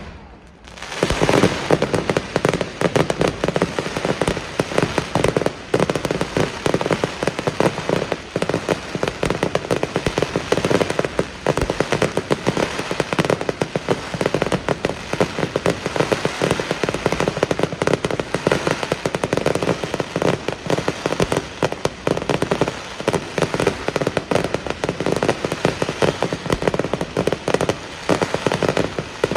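Fireworks display: a dense, unbroken rattle of rapid bangs and crackles that starts about a second in and keeps up without a pause.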